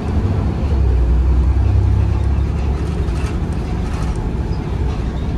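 Volvo B7RLE single-deck bus's diesel engine, heard from inside the bus as a loud low drone while it drives. The drone eases off about halfway through.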